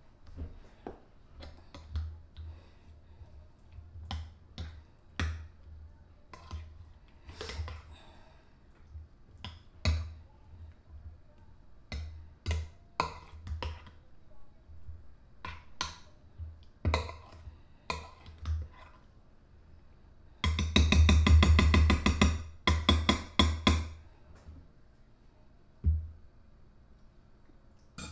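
Metal spoon stirring baked beans in a glass baking dish, with irregular clinks and knocks against the glass. About twenty seconds in, a louder rapid rattle lasts about three seconds.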